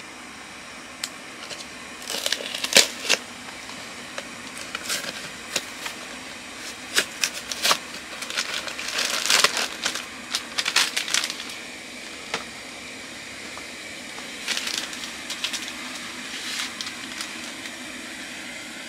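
Cardboard snack box and its plastic wrapper being opened and handled, in a run of sharp crackles, rustles and clicks that is busiest from about two to eleven seconds in and comes back briefly later, over a steady low hiss.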